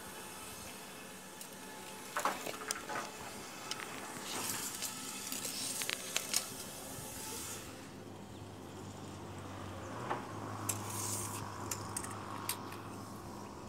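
Rustling and scraping with a few sharp clicks, from a steel tape measure being pulled out and handled along wooden boards.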